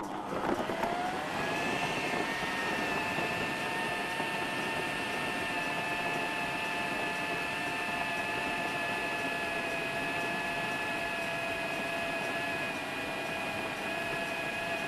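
Electric food processor motor running, spinning up over the first second into a steady high whine as its blade chops raw chicken and mashed potato into a paste.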